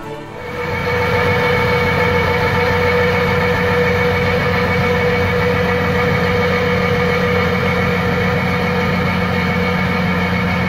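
Tractor engine running steadily under heavy load while driving a screw-type peat ditcher that cuts a drainage ditch through bog; a steady machine drone with a constant whine over it.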